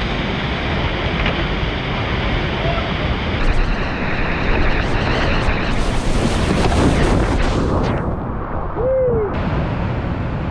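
Loud, steady rush of whitewater pouring through rapids and over small drops, picked up close by action cameras, changing abruptly several times as the shots cut. A brief pitched call sounds near the end.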